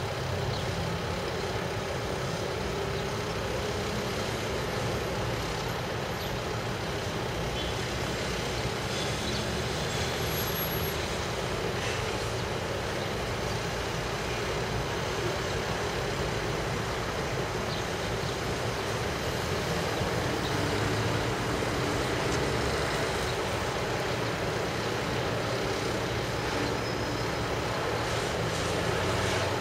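Steady urban road-traffic rumble, a continuous even wash of noise with no single event standing out.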